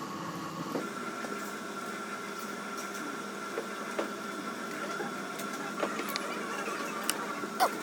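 Steady mechanical hum from a small machine with a thin steady whine, overlaid by a few sharp small clicks and taps, the loudest near the end.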